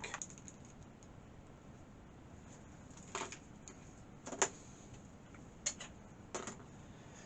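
A few light clicks and knocks of parts being handled over faint room tone.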